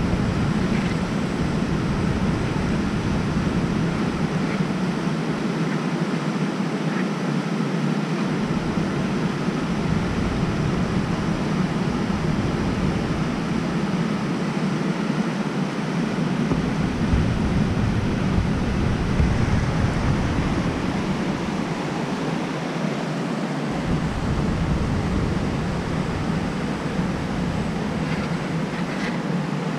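Steady rushing of a whitewater river's rapids, with a deep low rumble that cuts in and out several times.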